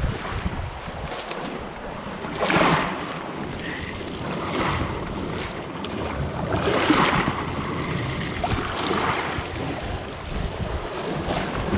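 Wind buffeting the microphone, a steady rushing noise with a low rumble that swells in stronger gusts about two and a half seconds in and again around seven seconds.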